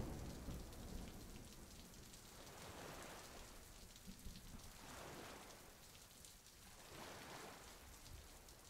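Faint scratchy rubbing of a metal spoon stylus dragged over leather, swelling in soft strokes about every two seconds as it rubs down the bevels along carved lines.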